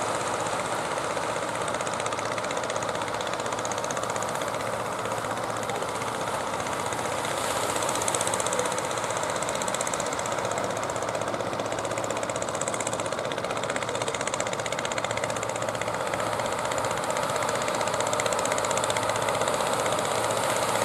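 Engine of a large wooden fishing boat running steadily as the boat heads in through the surf, over a constant hiss of breaking waves and water.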